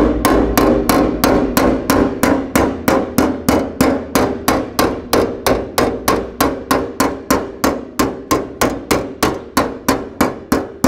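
Steady hammering on metal, about three evenly spaced blows a second, each blow ringing briefly.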